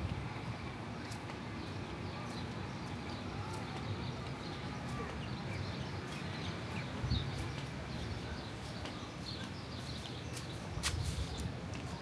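Outdoor pool-area ambience: a steady background murmur of distant voices, with scattered birds chirping and occasional light clicks.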